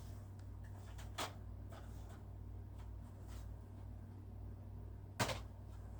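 Two short knocks, a small one about a second in and a louder one near the end, over a low steady hum.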